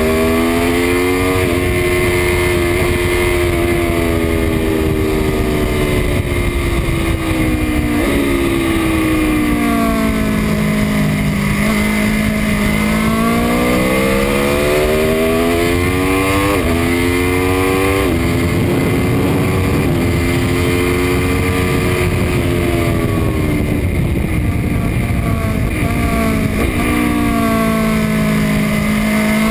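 Aprilia Tuono V4 1100 RR's V4 engine at full throttle on track, pitch climbing and then dropping sudden steps at each upshift, and falling twice in long sweeps on the brakes, over steady wind rush.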